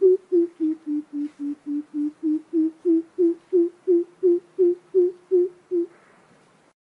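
Greater coucal giving its long series of low hoots, about three a second, dipping slightly in pitch and then climbing back before stopping near the end.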